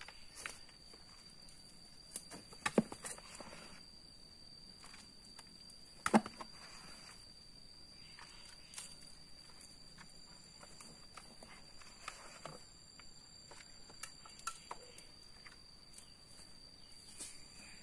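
Scattered sharp knocks and taps, the loudest a short cluster about three seconds in and a single hard knock about six seconds in, over a steady high-pitched whine.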